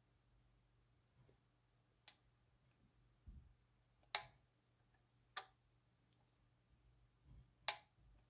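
Sharp little metallic clicks from the spiral-spring lock on a Kiev 60 camera body as its wire clip is worked by hand. There are about four clicks, two of them louder, with a couple of soft handling thumps between them.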